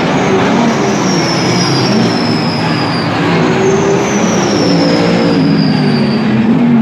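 Race cars running on track, with engine notes and a high whine that twice falls slowly in pitch over a few seconds as a car slows.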